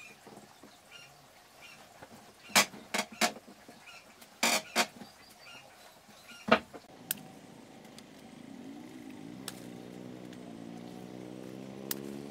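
A handful of sharp knocks, then a motor vehicle's engine running, its pitch and loudness rising steadily toward the end.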